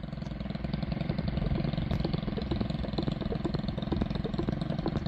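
Chainsaw's petrol engine running steadily, rising over the first second and then holding steady.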